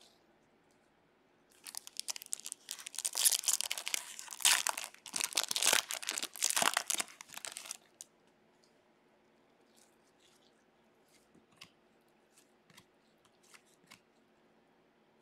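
Foil wrapper of a Topps Stadium Club baseball card pack being torn open and crinkled, a dense crackling that starts about a second and a half in and lasts about six seconds. After it come faint ticks of the cards being handled.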